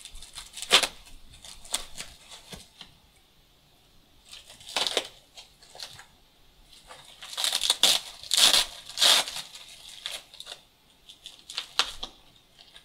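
A knife cutting and hands tearing open a white plastic-foam packaging sleeve, in scattered rustling bursts, with the loudest run of tearing a little past halfway.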